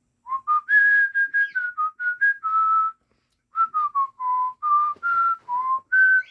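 Whistling: a tune of short, clear notes that step up and down in pitch, with a brief break about halfway through.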